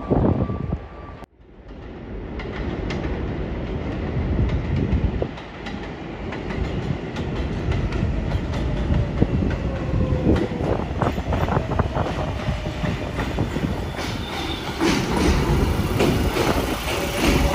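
New York City Subway L train running through the station without stopping: a steady rumble with wheels clacking over rail joints and a thin squeal gliding down in pitch. The sound cuts out abruptly about a second in, then builds back up.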